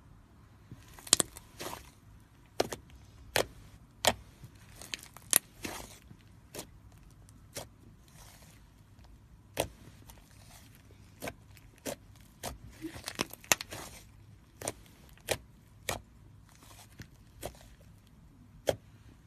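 Slime being squeezed and poked by hand, giving irregular sharp pops and clicks, a few coming in quick clusters.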